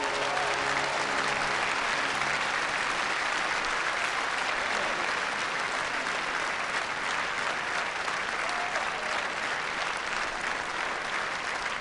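Concert-hall audience applauding, a dense steady clapping. The orchestra's last held chord dies away about two seconds in, and a couple of short calls rise above the applause later on.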